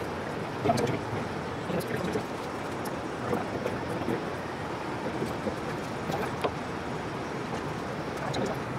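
A few light clicks and taps of small parts handled by hand, a trim-servo pushrod and its clevis being fitted, over steady background noise.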